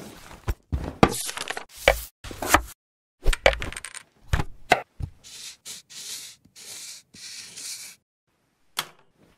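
Mechanical sound effects for a robot arm: a string of sharp knocks and clicks, then several short hissing bursts about five to eight seconds in.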